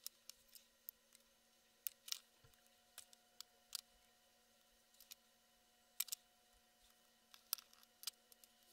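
Near silence broken by faint, irregular small clicks and taps: a small plastic USB 3.0 connector and metal tweezers being handled on a cutting mat.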